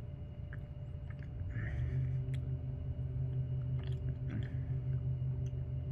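A person chewing a mouthful of soft chocolate snack cake, with small wet mouth clicks and smacks. A steady low hum sits behind it and grows louder about a second and a half in.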